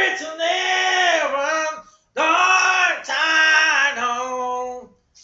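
A man singing loudly, without accompaniment, into a handheld microphone in a high register, in long drawn-out phrases that pause briefly about two seconds in.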